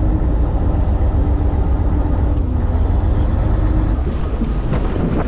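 Fishing boat's engine running, a steady low drone.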